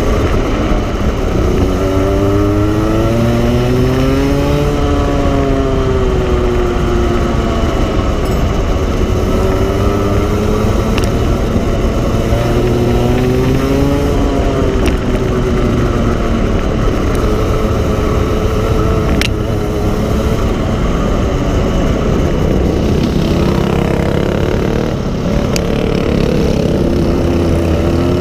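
Racing go-kart engine heard from onboard, revving up in pitch along the straights and dropping back as it slows for corners, again and again through the lap. A few faint clicks sound over the engine.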